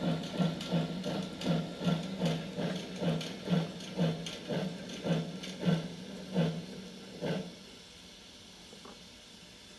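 Steam locomotive chuffing from a model-railway sound box, slowing steadily from about four chuffs a second to under two and stopping about seven and a half seconds in, as the train comes to a stop. A faint hiss follows.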